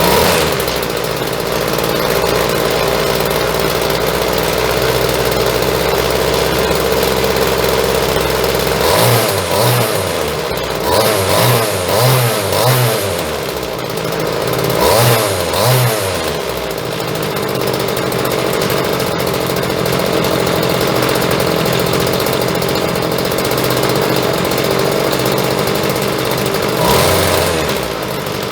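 Partner T240 strimmer's two-stroke engine running after being brought back from a non-runner, revved in a string of short blips in the middle and otherwise running steadily.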